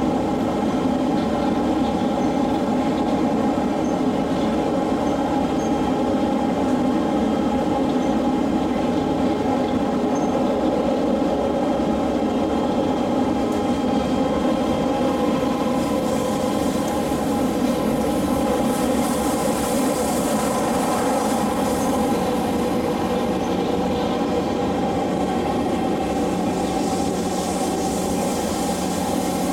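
SMRT C151 metro train running at steady speed on elevated track, heard from inside the passenger car: a continuous rumble of wheels on rail with steady motor tones.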